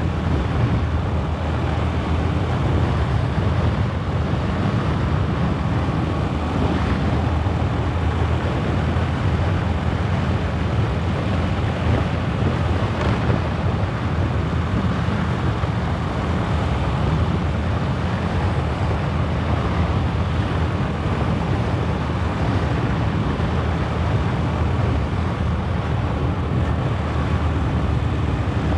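Loud, even wind rush over the microphone of a motor scooter being ridden along a road, with the scooter's engine and tyre noise mixed in underneath.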